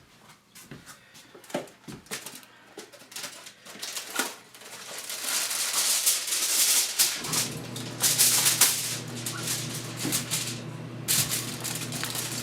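Aluminum foil crinkling and rustling as potatoes are wrapped in it, with scattered clicks and taps of handling. The crinkling turns dense and loud about five seconds in. A steady low hum comes on about seven seconds in.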